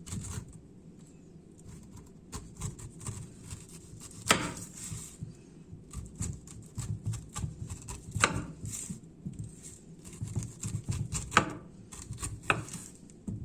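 Kitchen handling sounds from food preparation: scattered small clicks and knocks of utensils and dishes, with a few sharper knocks about four, eight, eleven and twelve seconds in.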